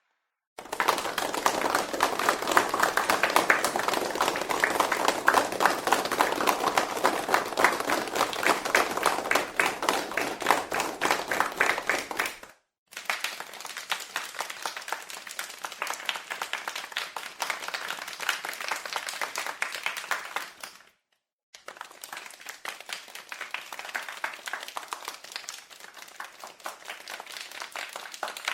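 Many hands clapping in applause, in three separate takes: a loud one of about twelve seconds, then two quieter ones, with a short silence between each.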